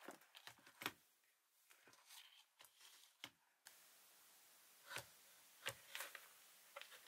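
Near silence with a few faint, scattered clicks and knocks of small objects being handled. A faint steady hiss comes in about halfway through.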